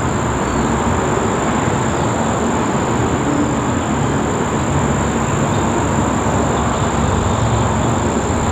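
Distant UH-60 Black Hawk helicopter flying at altitude: a steady, even low rotor and engine rumble.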